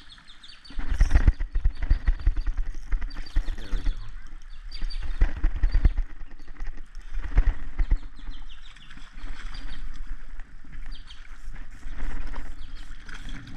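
Spinning reel being cranked while fighting a hooked trout, with irregular knocking and rubbing close to the microphone starting about a second in. The trout splashes at the surface near the end.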